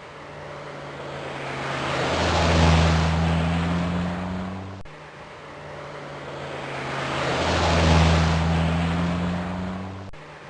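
Turbocharged Toyota Supra passing by under power: the engine note swells to a peak and then fades away. The same pass is heard twice, broken by an abrupt cut about five seconds in.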